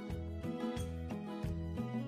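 Background music: an even rhythm of notes over a low bass line.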